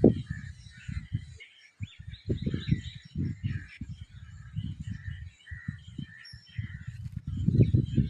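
Small birds chirping continuously, with irregular low rumbling bursts on the microphone, louder than the birds, coming and going throughout.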